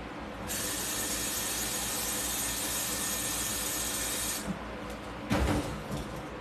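Water running hard from a kitchen tap for about four seconds, starting and stopping abruptly, followed by a short knock a second later.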